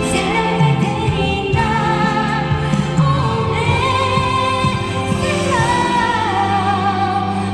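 Live pop music: a woman singing, holding long wavering notes, over a band.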